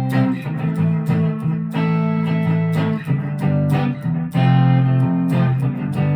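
Chapman ML3 Pro Modern electric guitar played through an amplifier, strumming sustained chords that change every second or so.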